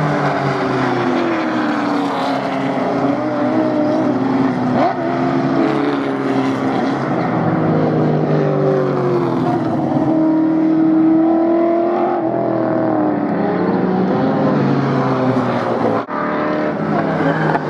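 Improved Production racing car engines running hard, several at once, their pitches rising and falling with throttle and gear changes. The sound breaks off briefly about sixteen seconds in.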